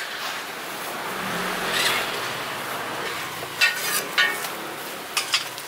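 Shallot bread deep-frying in a wok of hot oil, a steady sizzle that swells a second or two in, with a low hum underneath at the same time. A few sharp clicks come from about three and a half seconds in.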